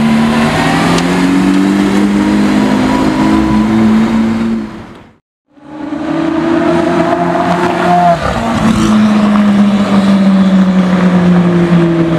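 Lamborghini Aventador SVJ Roadster's V12 running loud at high revs, its pitch gliding slowly. The sound fades out about five seconds in, then the V12 comes back accelerating, pitch climbing and breaking about eight seconds in before holding steady as the car pulls away.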